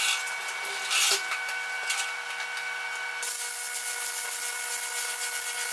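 Welder tacking and welding steel: two short bursts of hissing arc, then a longer weld of about three seconds starting about three seconds in, over a steady hum.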